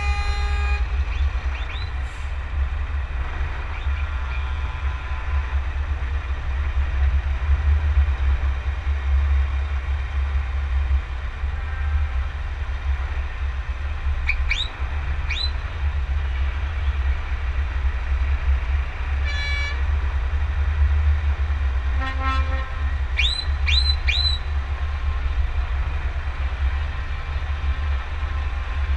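A Scania truck driving at parade pace, heard as a loud steady low rumble. Horns toot over it: two short rising toots about halfway, a brief multi-tone horn note about two-thirds in, then another short note and three quick rising toots.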